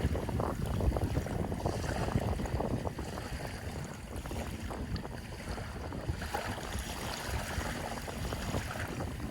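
Sea waves washing and lapping, with a low rumble of wind buffeting the microphone; a little louder in the first three seconds.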